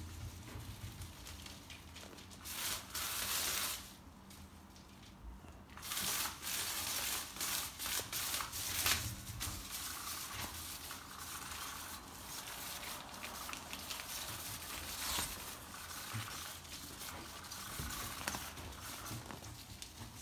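Ferret and kitten scrambling over plastic sheeting and artificial turf: irregular bursts of rustling, crinkling and scratching, with a quieter stretch a few seconds in.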